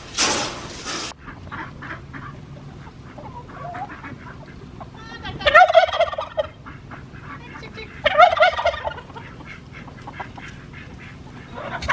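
Domestic turkey gobbling twice, a rapid rattling call each time, the first about five seconds in and the second about three seconds later.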